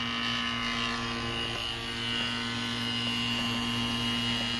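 Electric AC vacuum pump running with a steady hum while it evacuates a sealed air-conditioning system.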